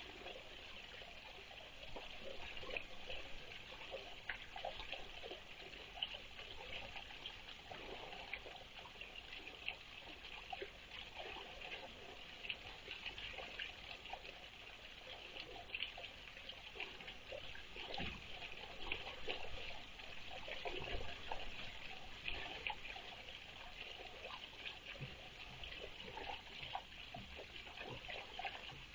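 Small garden water hole with water trickling steadily.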